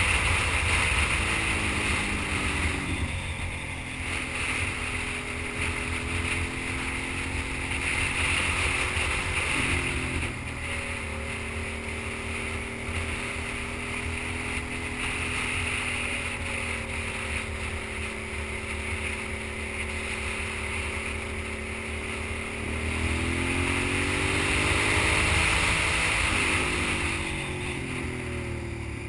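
Sport motorcycle engine running under way, its pitch dropping a couple of seconds in, jumping up around ten seconds, and climbing again near the end as the throttle and gears change. Heavy wind rumble on the microphone runs under it.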